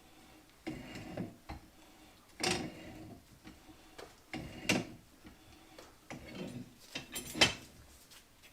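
Irregular metal clinks and scrapes of hand tools working at a hydraulic cylinder's end cap, trying to free it: about five separate bursts, the loudest near the end.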